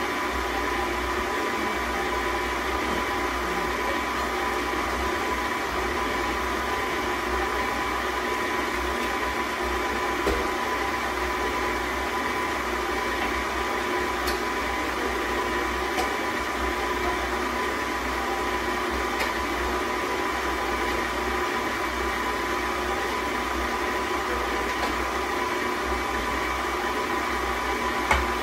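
Electric stand mixer running at a steady speed, its motor humming with a steady whine as the beater works through a bowl of boiled potatoes and butter.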